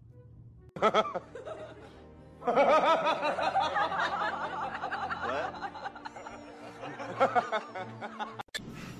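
A person laughing in fits: a short burst about a second in, then hard, sustained laughter from about two and a half seconds in.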